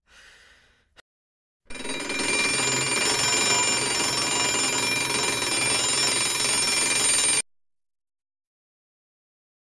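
An alarm bell ringing loudly and continuously for about six seconds, then cutting off suddenly; a short click comes just before it starts.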